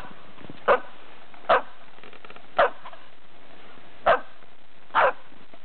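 A dog barking: five short, sharp barks at uneven intervals of about a second, over a steady background hiss.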